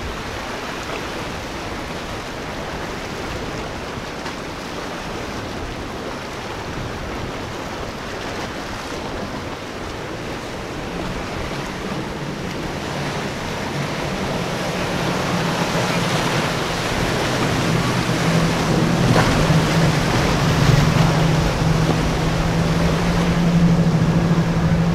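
Steady rush of surf and wind-blown chop, joined about halfway by the low hum of a boat's engine running through the waves, which grows louder toward the end.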